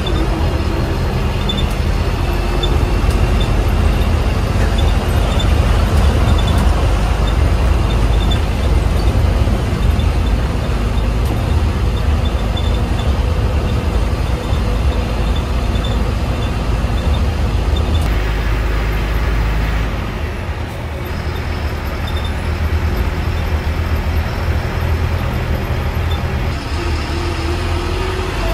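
MSRTC BS6 diesel bus running with a steady low engine rumble. The low rumble falls off about twenty seconds in and comes back near the end.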